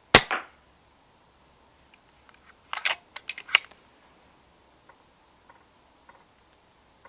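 One shot from a moderated FX Dreamline Classic PCP air rifle, a sharp crack with a short ring just after the start. About two and a half seconds later comes a quick run of clicks and knocks, then a few faint ticks.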